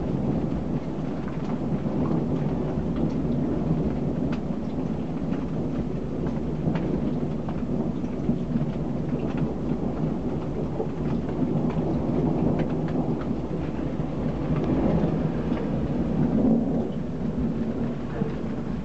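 Rain falling in a thunderstorm: a continuous low rumble with many small pattering hits on top, steady throughout.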